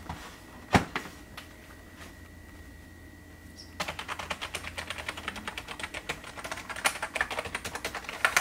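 Keys of a Logitech G213 Prodigy keyboard with Mech-Dome keys being pressed, a dense run of rapid plastic clicks starting about four seconds in, after a single sharp click about a second in.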